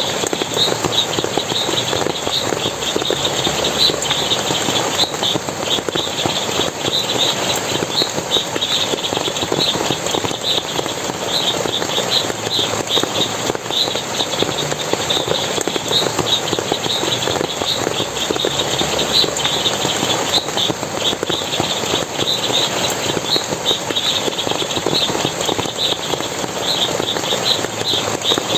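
Forest water splashing and running steadily, with rapid, high-pitched chirps repeating several times a second throughout.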